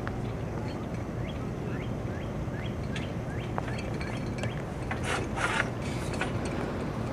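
Small gasoline engine of a drilling rig running steadily. Over it comes a run of short rising chirps, about three a second, then a brief hiss about five seconds in.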